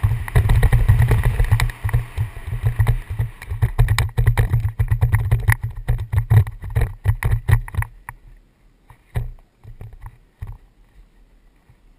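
Downhill mountain bike rattling and clattering over a rough dirt trail, heard through a helmet-mounted camera with a heavy rumble of wind and jolts on the microphone. The clatter dies away about eight seconds in as the bike stops, leaving a few light knocks.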